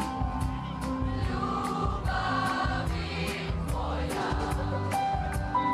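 Live rock band playing, with a steady drum beat of cymbal hits about two or three a second, held keyboard notes, and voices singing through the middle.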